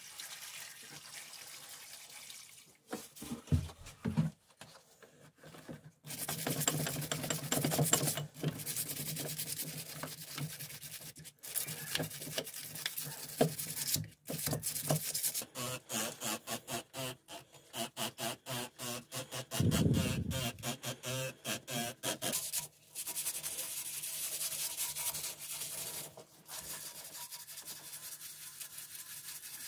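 Liquid poured into a plastic tub at the start, then a brush scrubbing rusty steel fly-press parts (lead screw and gib plates) in the liquid, in quick back-and-forth strokes of about four or five a second in the middle.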